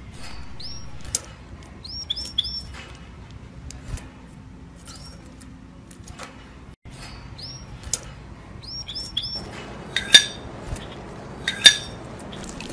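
Small birds chirping over and over in short quick notes, with cutlery and dishes clinking. Two louder, ringing metal-on-ceramic clinks come near the end.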